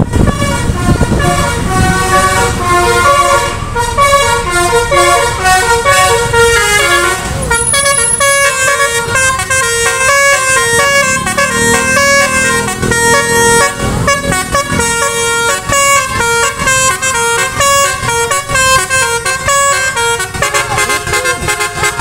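Telolet musical air horn on a tour bus playing a fast melody, several horn tones sounding together and stepping quickly from note to note, with the tune changing about seven seconds in. The bus's engine is running underneath.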